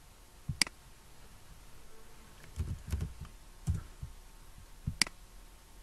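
Computer keyboard and mouse: a sharp click, then a short run of soft keystrokes typing a word, then another sharp click near the end.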